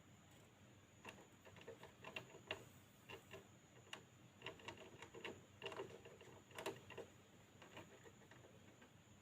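A pet hamster making a faint run of small, irregular crunching clicks, like gnawing, starting about a second in and stopping about seven seconds in.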